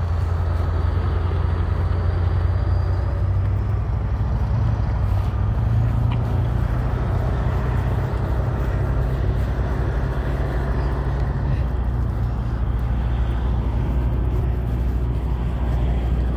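Steady low hum of motor vehicle engines running, over a haze of road noise; the hum steps slightly in pitch a few seconds in and again past the middle.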